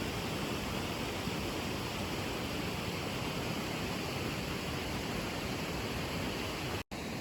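Steady rushing of a river, with an instant's break near the end.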